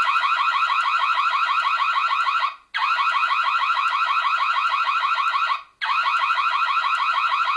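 Built-in siren of an Imilab EC3 Lite outdoor Wi-Fi security camera sounding its alarm. It plays three loud blasts of about three seconds each, with brief breaks between them. Each blast is a fast train of short rising chirps.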